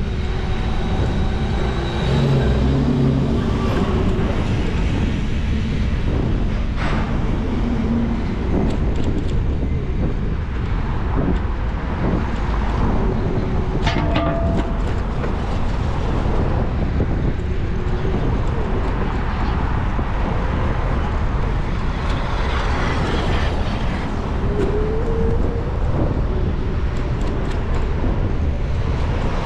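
Steady road noise and engine rumble of a car driving along a busy city street, with other traffic going by.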